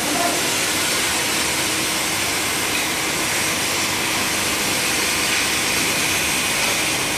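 Glass V-groove grinding machine running, its water-cooled abrasive wheel cutting a groove into a glass sheet pushed over it by hand: a steady grinding noise with a faint hum under it.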